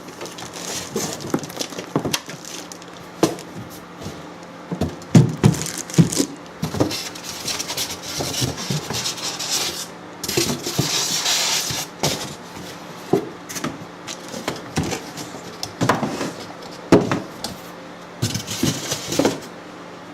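Cardboard box and packaging being handled to get the rework station's main unit out: irregular knocks and bumps with rustling between them, and a longer, denser rustle about ten seconds in.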